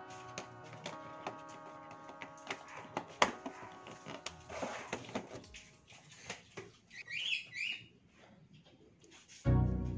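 Plastic food tubs clicking and knocking as they are picked up, stacked and set down on a counter, with the sharpest knock about three seconds in. Soft background music fades out by the middle, two short high chirps come about seven seconds in, and louder music starts just before the end.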